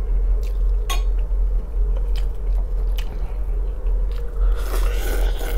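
A man chewing and biting close to the microphone, with short wet mouth clicks, then a longer slurp near the end as he takes in noodles from chopsticks.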